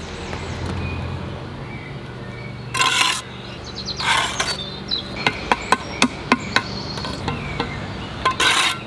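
Bricklaying trowel work: three short scraping strokes, and in the middle a quick run of about seven sharp taps. A steady low engine-like hum sits underneath, with birds chirping faintly.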